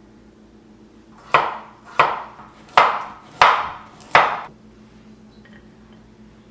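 A chef's knife slicing a carrot into rounds on a wooden cutting board: five crisp chops, about two-thirds of a second apart, each knocking on the board.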